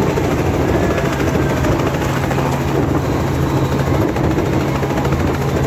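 Small helicopter running on the ground: a steady drone of its engine and rotor.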